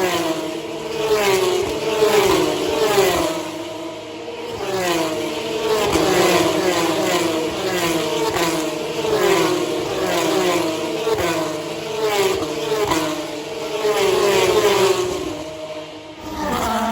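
Formula One cars racing past, loud engine notes falling in pitch again and again, roughly once a second.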